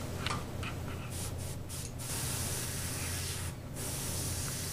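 Airbrush hissing as it sprays paint onto the fins of a fish replica: a few short spurts about a second in, then a longer steady spray with a brief break near the end.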